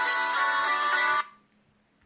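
Nokia C6-00 ringtone playing a short melody of plucked, guitar-like notes. It cuts off about a second and a quarter in.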